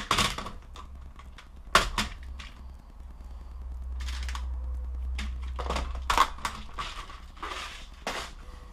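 A few sharp clicks and bouts of plastic rustling as a small clear plastic parts box and a plastic bag of bicycle spoke nipples are handled and opened.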